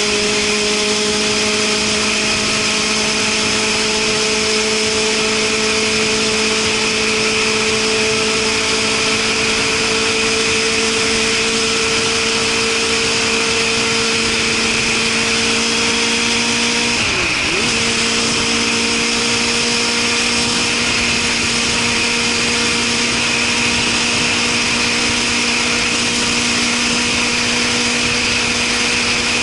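Suzuki Katana motorcycle engine breathing through a Super Combat aftermarket muffler, loud for a legal exhaust, running at a steady cruise with its pitch slowly climbing under a continuous rush of wind. A little past halfway the revs dip sharply for a moment and come straight back.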